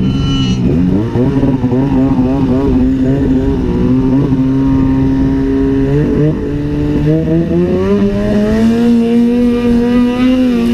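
Turbocharged snowmobile engine running under throttle while riding through powder. Its pitch holds steady with brief dips about a second in and again around six seconds, then rises steadily over the last few seconds as the sled speeds up.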